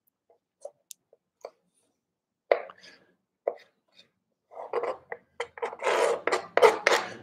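Kitchen knife cutting tomatoes on a plastic cutting board: a few light taps at first, then a run of quick chops of the blade against the board in the second half.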